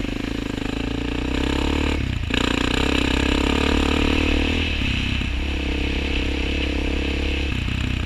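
Suzuki LT-Z400 quad's single-cylinder four-stroke engine running hard under throttle. The engine note drops briefly about two seconds in and again about five seconds in, as the throttle eases, then picks up again.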